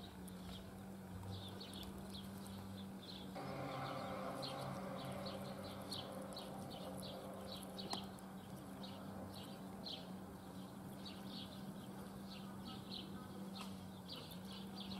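Outdoor ambience: a steady run of short, high chirps, two or three a second, over a constant low hum. A soft hiss rises in a few seconds in.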